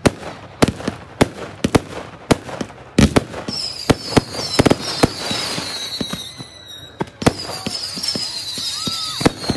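Fireworks display: a rapid string of sharp bangs from bursting shells, several a second. About three and a half seconds in, a high whistle starts and falls slowly in pitch, and it comes again near the end.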